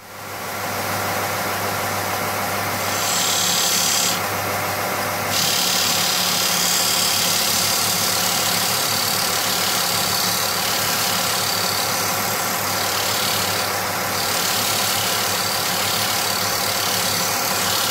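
Charnwood BD610 belt and disc sander running, its 750-watt induction motor giving a steady hum, while a wood block is pressed against the 10-inch disc. A higher hiss of abrasive on wood comes and goes, strongest about three to five seconds in.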